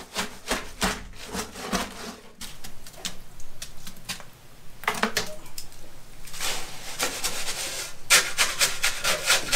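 Steel shovel scraping and scooping wet concrete mix in a plastic tote, in a series of rough scrapes that come quick and close together near the end.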